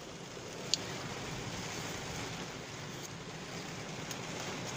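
Steady low rush of background noise inside a car, with one sharp click a little under a second in and two faint ticks later.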